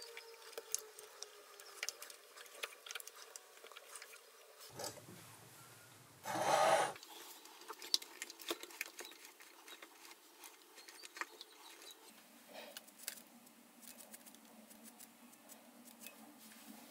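Shop-made tap being turned by hand with an adjustable wrench, cutting a thread in a steel die blank: scattered faint clicks and scraping as the tap cuts. There is one brief, louder rustling scrape about six seconds in.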